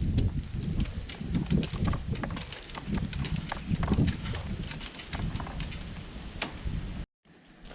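Irregular clicks and knocks of fence wire being lifted and shaken along the fence line, over a fluctuating wind rumble on the microphone; the sound cuts off abruptly about seven seconds in.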